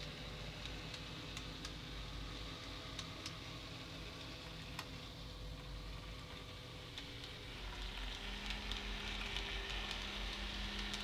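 N gauge model trains running on the track: a steady small-motor hum with scattered light clicks of wheels over the rail joints. About eight seconds in, a lower hum comes in and the sound grows louder as the locomotive draws closer.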